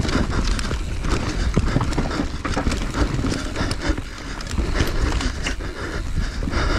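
Enduro motorcycle ridden over rough ground, with a steady low rumble and many irregular knocks and rattles from the bike.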